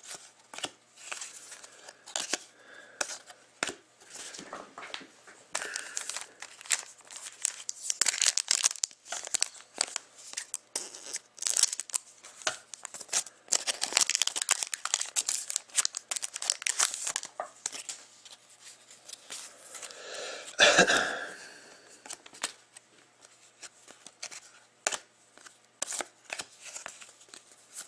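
A foil trading-card pack being torn open and crinkled, with the cards inside handled and flicked against each other. Its crackling and clicking is busiest in the middle, and one brief louder thump comes about twenty seconds in.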